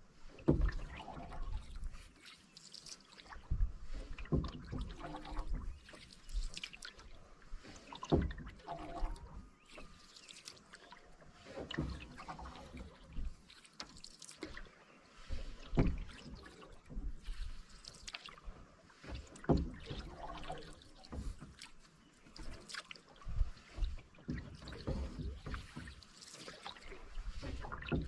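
Canoe paddle strokes, each a splash with water swishing and trickling off the blade, coming about once every four seconds.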